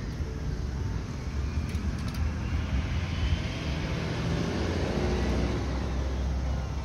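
Vehicle running: a steady deep rumble, with a rush of noise that swells about midway and then fades.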